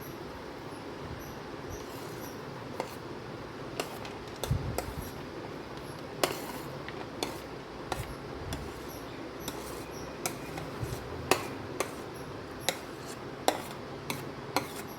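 Irregular clinks and taps of kitchen utensils against a bowl as cut fruit is added and stirred into a mixed fruit juice, over a steady low background hum.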